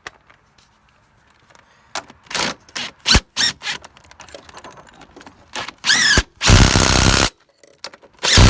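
Power impact wrench driving the 18 mm motor mount bolts: a few short trigger pulls, a brief squeal, then two longer runs as the bolts are run down.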